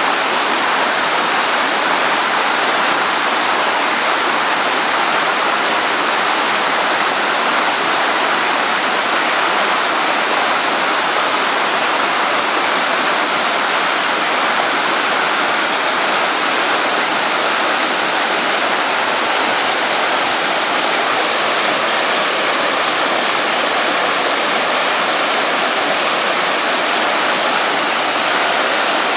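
Running water rushing steadily, an even, unchanging wash of sound with no breaks.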